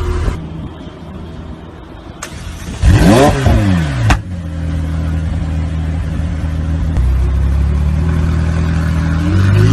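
McLaren supercar's twin-turbo V8 revved hard once about three seconds in, its pitch sweeping up and back down. It then runs steadily as the car drives along, the note climbing again near the end.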